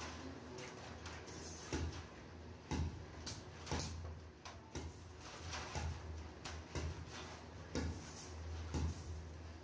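Hexagonal wire mesh rattling and clinking as it is pressed and squeezed by hand into a basket shape, with irregular sharp metallic clicks about once a second. A steady low hum runs underneath.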